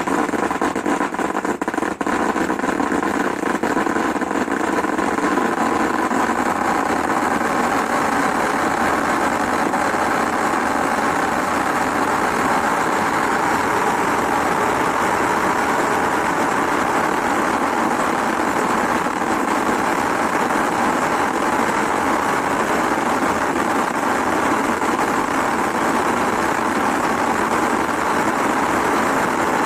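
13-inch conic silver crackling fountain firework burning: a steady rushing jet of sparks laced with dense, fast crackling that holds evenly throughout.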